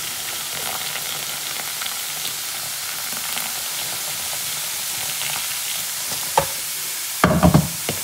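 Hot water poured in a steady stream from an electric kettle into a plastic bowl of oxygen-bleach cleaner, which fizzes and hisses as it foams. Near the end, a click and then a louder knock.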